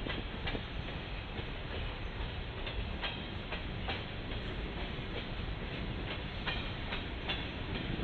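CSX freight train's cars rolling past, wheels clicking over rail joints every half second or so over a steady rumble.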